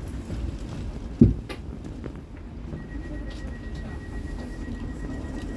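Interior of a Cologne Stadtbahn light-rail car standing at a platform: a steady low rumble, with one sharp thump about a second in. A thin steady high tone comes in about halfway through and holds.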